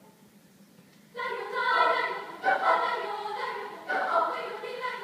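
School choir singing in a concert hall. After about a second of near silence, the choir comes back in loudly with a new phrase, in strong accented attacks roughly every second and a half.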